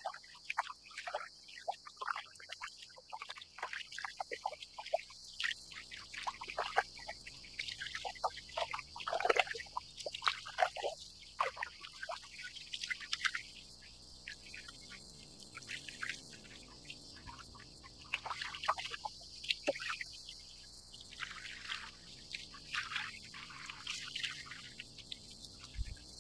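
Small waves lapping and slapping against a moulded plastic kayak hull in many short, irregular splashes, over a steady high hiss.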